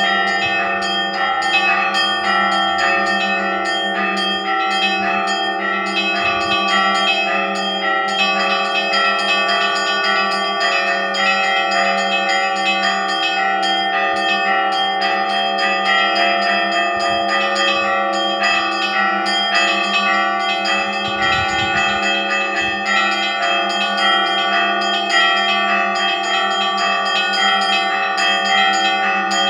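Orthodox church bells ringing together in a continuous peal. Many smaller bells are struck in quick, dense patterns over the sustained, pulsing hum of a larger bell.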